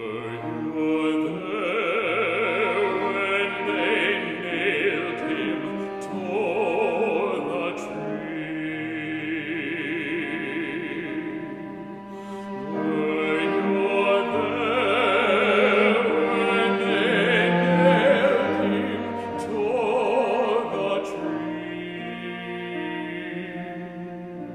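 A man singing a slow, solemn solo hymn with wide vibrato, in two long phrases, over sustained chords from an electric keyboard.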